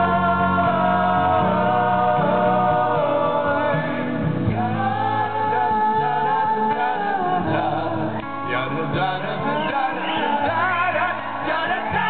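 Live band music: three male voices singing in close harmony over acoustic guitar and band accompaniment.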